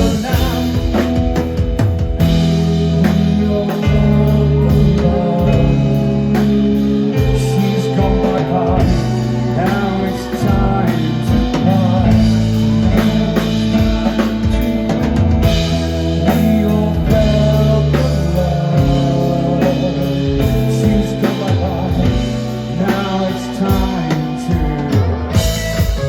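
Rock band playing a song: drums, bass and guitar with a singing voice over them.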